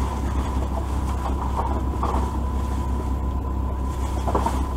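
Plastic bags and trash in a dumpster being rummaged through, faint irregular rustling, over a steady low machine hum with a thin high whine.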